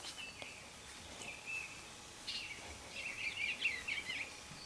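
Small songbirds chirping and twittering: a few short high calls, then a longer run of quick, warbling notes in the second half.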